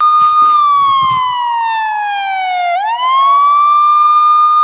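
Police siren sound effect, starting suddenly: a single wailing tone that holds, falls slowly for a couple of seconds, then sweeps quickly back up about three seconds in and holds high.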